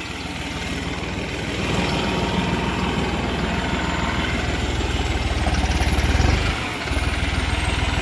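New Holland T3.75 tractor's 75 hp common-rail diesel engine running with a steady low rumble, growing louder over the first couple of seconds and dipping briefly about two-thirds of the way in. A faint high whistle rises and falls near the same moment.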